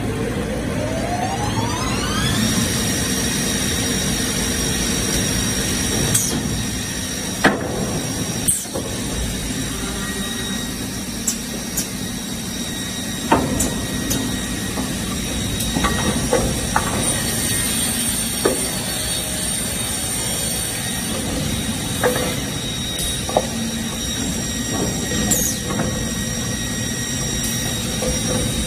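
Holztek CNC panel saw spinning up with a rising whine that levels off into a steady high whine about two seconds in. Scattered knocks and clacks come from wooden blanks being loaded onto the machine table.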